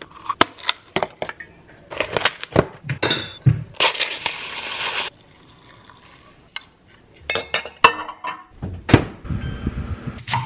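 Kitchen clatter from making breakfast: scattered clinks and knocks of a ceramic bowl, a glass measuring cup and a small jar on a countertop, with a rushing noise for about a second, four seconds in, and heavier knocks near the end.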